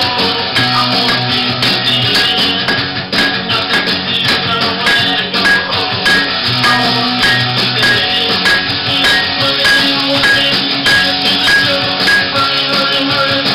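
Instrumental background music with sustained notes over a steady, busy beat of short percussive strikes.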